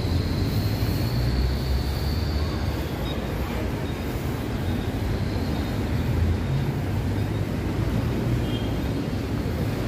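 Steady city traffic rumble, with a faint high whine over the first few seconds.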